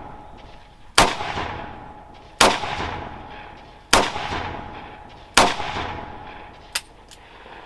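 Rock Island Armory AL 3.0 .357 Magnum snub-nose revolver firing 158 grain full metal jacket rounds: four shots about a second and a half apart, each a sharp report with a long fading echo. A small sharp click follows near the end.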